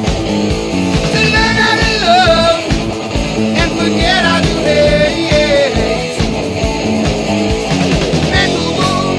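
Background rock music: a singing voice over guitar and a steady beat.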